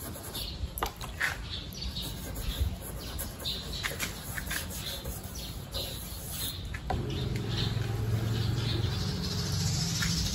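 Short, irregular scratchy strokes of a small brush scrubbing along a car door's window sill and trim. About seven seconds in, a steady low hum comes in underneath.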